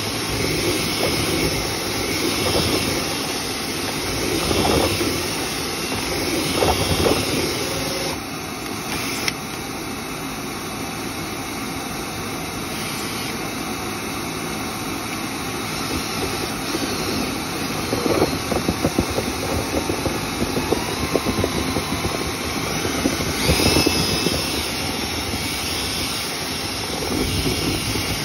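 Dryer vent cleaning equipment running: a steady loud rush of air, with bouts of rattling and knocking as the vent is worked through.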